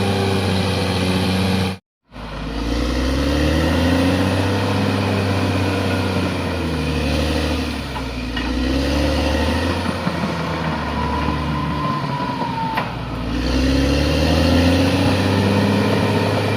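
Bulldozer's diesel engine working under load, its pitch rising and falling repeatedly as it revs up and eases off. The sound cuts out completely for a moment about two seconds in.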